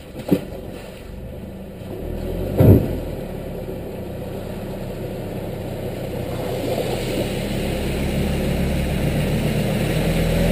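Four-wheel-drive ute engine pulling through a shallow river crossing, growing steadily louder as it approaches, with water splashing and hissing off its tyres over the second half. Two sharp thumps stand out, one just after the start and a louder one a couple of seconds later.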